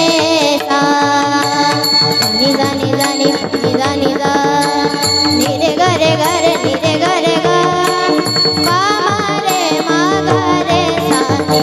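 Kirtan devotional music: a melody with gliding, ornamented pitch over sustained steady tones and drum accompaniment.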